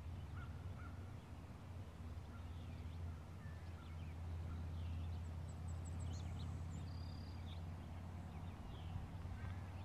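Songbirds chirping and calling in scattered short notes over open ground, with a steady low hum underneath.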